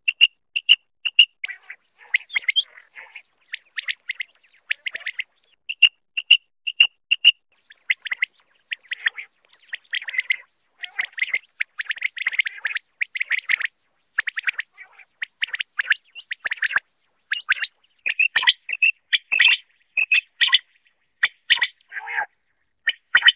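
Common quail calling: short, clipped high notes repeated in quick groups of three or four, with denser runs of calls between.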